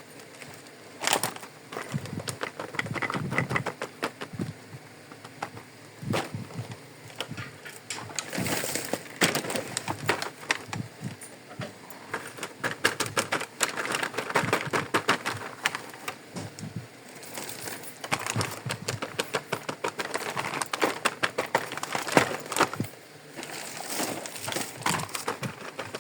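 Small plastic toy kitchen pieces being unpacked and handled: a dense, uneven run of light clicks, taps and crinkles.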